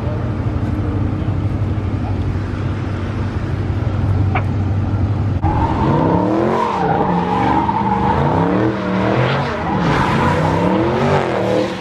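Car engine running steadily, then about five seconds in the tyres break into a sustained squeal while the engine revs rise and fall over and over, as in a burnout or drift.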